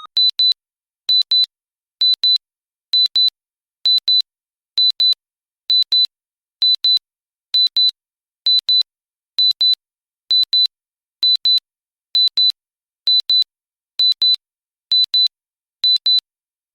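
Electronic countdown-timer alarm beeping: short high-pitched double beeps, one pair a little faster than once a second, signalling that the countdown has reached zero.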